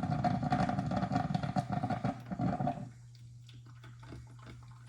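Mr. Coffee drip coffee maker gurgling and sputtering as it pushes hot water through the brew basket. The gurgling stops abruptly about three seconds in, leaving a low hum and faint ticking drips.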